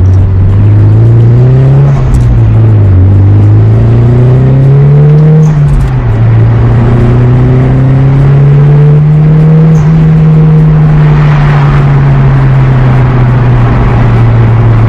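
Turbocharged SR20DET four-cylinder engine pulling through the gears. Its pitch climbs, then drops at shifts about two and five and a half seconds in, and it then holds at a nearly steady pitch.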